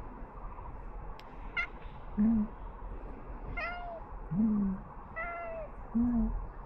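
A stray cat meowing over and over: three higher meows, each followed about half a second later by a short, louder low-pitched call.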